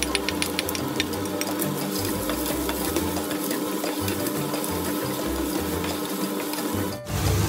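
Minced garlic sizzling in hot oil in a frying pan, stirred with a spatula. A quick run of taps and scrapes of the spatula on the pan comes in the first two seconds.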